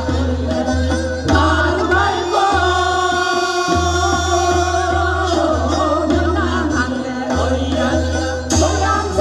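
A group of women singing a Korean folk song together into microphones, with musical accompaniment carrying a steady low beat.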